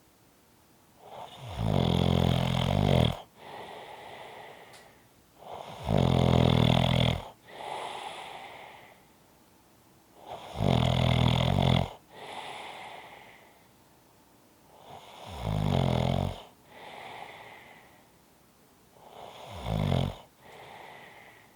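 A person snoring steadily: five loud snores about every four and a half seconds, each followed by a quieter breath.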